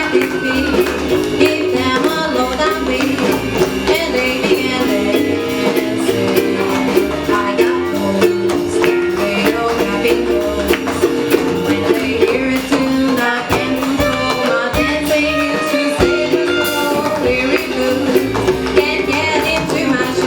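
A small live band playing an upbeat tune, overlaid with the sharp, rapid clicks of tap shoes striking the floor in a tap dance.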